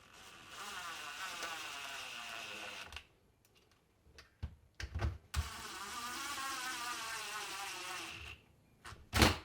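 Cordless DeWalt driver, set low, running in two spells of a few seconds each as it drives T27 screws into a chainsaw's starter cover, the whine wavering in pitch. Short clicks fall between the two spells, and a sharp knock comes near the end.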